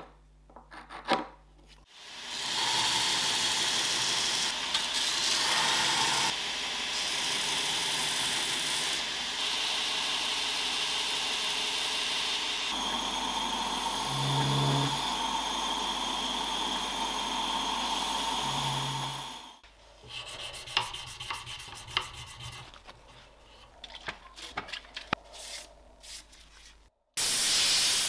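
Belt grinder grinding a steel knife blank: a steady grinding noise that starts about two seconds in and stops abruptly about two-thirds of the way through. Light clicks and handling noises follow, and a short loud spray hiss comes near the end.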